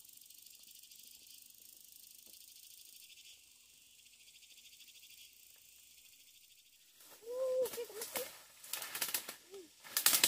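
A faint steady high insect chorus, then from about seven seconds in loud rustling and crackling of leaves and twigs as someone pushes through dense undergrowth, with a few short pitched calls mixed in.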